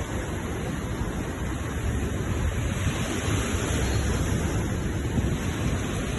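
Sea waves surging and washing ashore: a steady rush of surf that grows a little louder about two seconds in.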